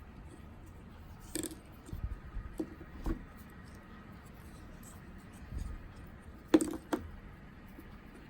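Light handling clicks and rustles of thread-seal tape being wound onto the plastic thread of a toilet inlet valve, with a low thump about halfway and a sharp double click near the end.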